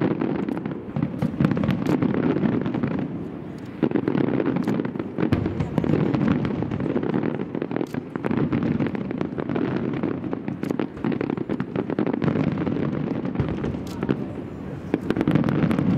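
Fireworks display: many aerial shells bursting in quick succession. Overlapping bangs blend into a steady low rumble, with many sharp cracks and pops throughout.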